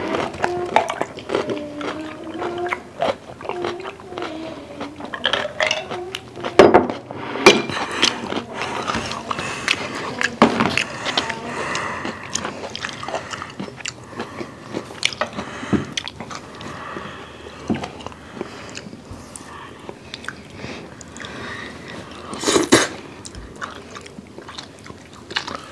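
Close-up eating sounds: chewing and biting food, with short clicks of chopsticks and forks against plates. A wavering hum runs through the first few seconds, and a few sharper knocks stand out about seven seconds in and near the end.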